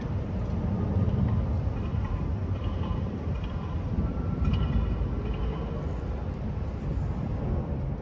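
Steady low outdoor city rumble with a few faint high tones now and then.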